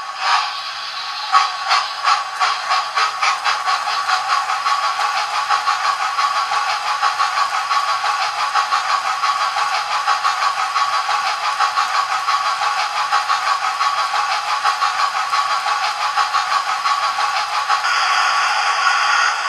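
Hornby R3803TTS Hogwarts Castle model locomotive's TTS sound decoder playing generic steam-locomotive chuffs from its small speaker: slow beats at first that quicken within a few seconds into a rapid, even chuffing with steam hiss. Near the end the beat blurs and the hiss grows louder.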